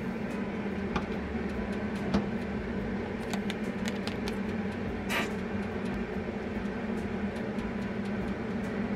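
Steady mechanical hum throughout, with a few light clicks and a short scrape of a metal measuring spoon against a small bowl as thick ketchup and sauce are spooned in, the loudest scrape about five seconds in.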